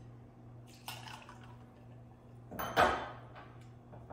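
Metal bar tools clinking: a steel jigger and cocktail shaker tin as a measure of liqueur is poured into the iced shaker. There is a sharp click about a second in and a louder clatter just under three seconds in, then a couple of lighter clicks.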